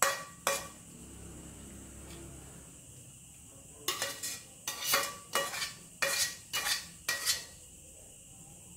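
Metal serving spoon scraping and clinking against a stainless steel pan as sauce and vegetables are spooned out. Two strokes at the start, then a quick run of clinks about two a second from about four seconds in to past seven.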